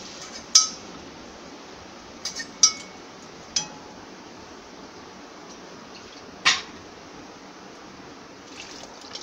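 A metal spatula clinking and scraping against a pressure cooker and a kadai while cooked dal is scraped out of the cooker into the pan and stirred: a handful of sharp metallic clinks, some briefly ringing, three of them close together about two to three seconds in and a loud one near six and a half seconds, over a faint steady hiss.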